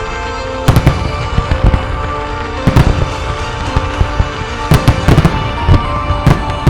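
Aerial firework shells bursting: a dozen or more sharp bangs in irregular clusters, over a steady music soundtrack.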